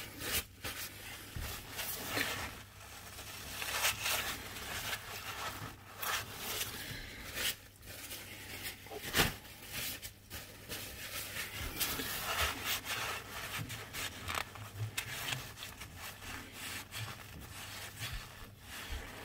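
A gloved hand wiping a rag over the engine's oil filter mounting face, cleaning where the filter's O-ring seals: irregular soft rubbing and scraping, with a few sharp clicks and knocks along the way.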